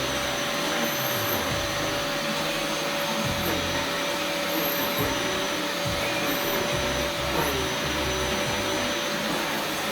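Vacuum cleaner running steadily, a constant rushing noise with one held whine, and irregular low bumps as the nozzle is moved about.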